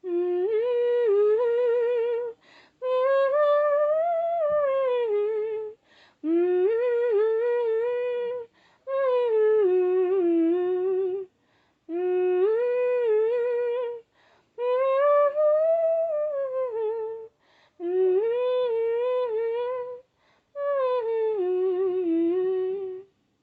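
A person humming a wordless melody in a high voice, in eight phrases of two to three seconds each, with short breaks for breath between them.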